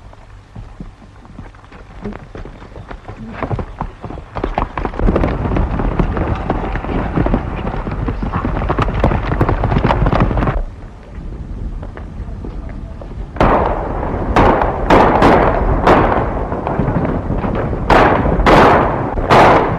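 Horses galloping, the hoofbeats growing louder and stopping abruptly about ten seconds in. Then a ragged volley of about nine gunshots over more hoofbeats, several shots in quick succession; the shots are the loudest sounds. All of it is heard on an old film soundtrack.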